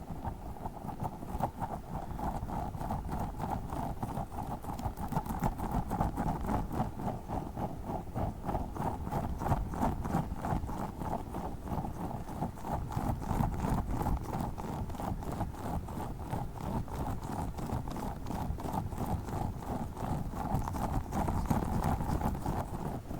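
Tiny spiky Orbeez squishy balls squeezed and rubbed by hand, giving a fast, steady run of squishing and clicking sounds.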